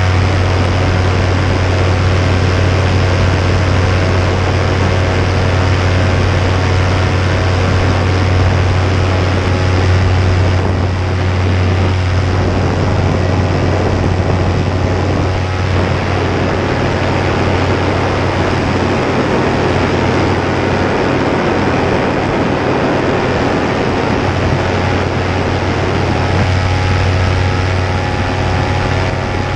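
Paramotor engine and propeller droning steadily in flight, a low hum with many even tones over a rushing hiss. The tones blur through the middle stretch and come back clearly near the end.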